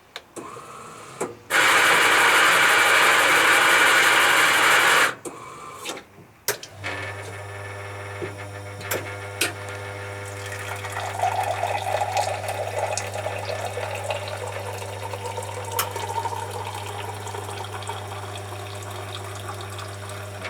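A bean-to-cup espresso machine starting an Americano. Its built-in grinder runs loud for about three and a half seconds. After a short pause its pump starts a steady hum, and coffee runs through into the glass.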